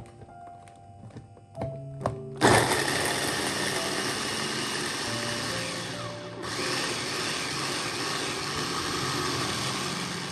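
Electric mini food chopper running, its blades chopping shallots in a plastic bowl. It starts about two seconds in, stops for a moment around the middle as it is pulsed, then runs on; a few clicks come before it starts.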